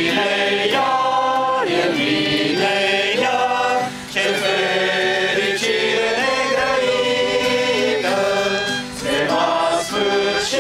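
A group of voices singing a Romanian Christian hymn together, accompanied by an acoustic guitar, with short pauses for breath between phrases.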